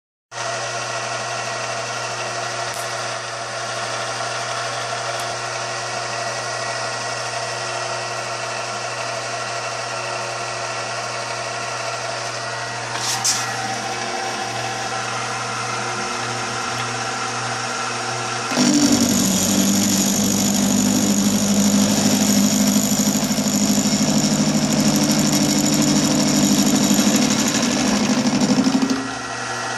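Precision Matthews PM-25MV benchtop milling machine, spindle at about 206 rpm, running with a steady motor hum and a brief knock about 13 seconds in. Near 19 seconds the end mill bites into steel and the sound turns loud and rough with a heavy low chatter, until the cut ends near the close.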